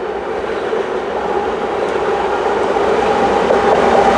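Canadian Pacific GE AC4400CW diesel-electric locomotive and its grain train approaching on the main line as the train slows to stop, a steady rumble with a hum and rail noise that grows louder as the locomotive draws near.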